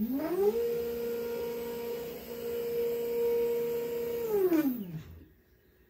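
Yeti SmartBench CNC router's stepper motors driving the router head along its rails in a jog move. The whine rises in pitch as the head speeds up, holds steady for about four seconds, then falls away as the head stops about five seconds in.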